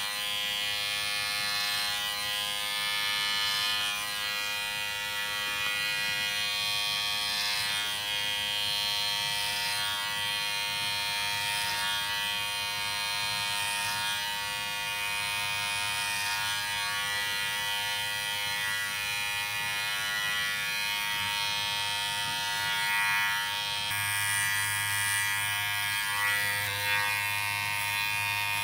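Electric hair clippers running steadily with an even motor hum; the tone shifts slightly near the end.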